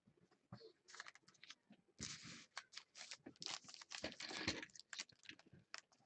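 Wrappers of Panini football trading-card packs crinkling and crackling as they are handled and opened. The crackles are faint and come thick and fast from about two seconds in.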